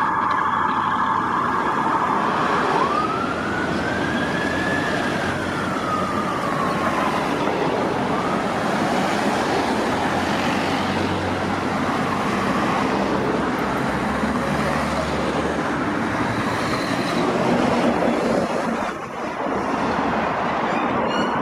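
Police vehicle's electronic siren on a wail, one slow rise and fall, then dense road traffic noise from passing vehicles; another siren starts up near the end.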